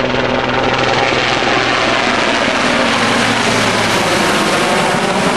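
Large helicopter flying past close overhead, a loud steady rotor and turbine noise that grows brighter as it nears.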